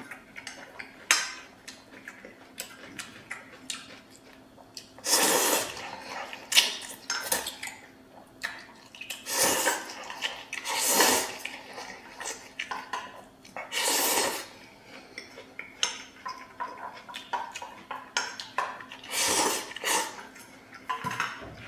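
A person slurping stir-fried noodles from a stainless steel bowl: about five long loud slurps, with chopsticks clicking and tapping on the metal bowl and chewing in between.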